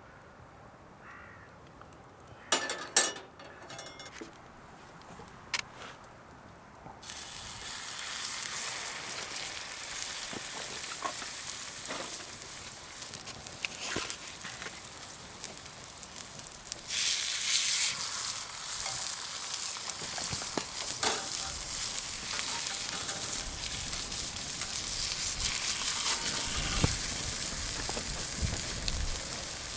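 Hamburg steak patties sizzling on a hot iron griddle over a wood fire. A few sharp clicks come first, the sizzle starts about seven seconds in, and it grows louder about halfway through. A low rumble comes near the end.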